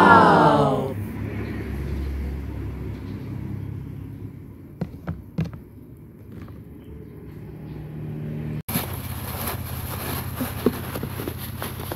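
A short voice-like call at the very start, then a low steady hum with a few clicks. About two-thirds in, the sound cuts to a dense crackling rustle with hiss: styrofoam beads being stirred and squeezed.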